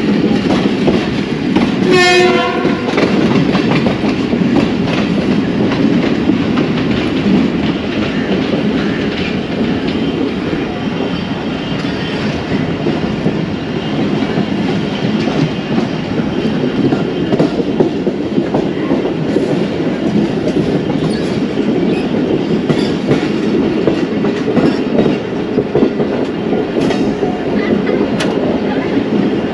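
Passenger train running on the rails, a steady rumble and rattle with wheel clicks over the rail joints, as it pulls into a station. A short locomotive horn blast about two seconds in.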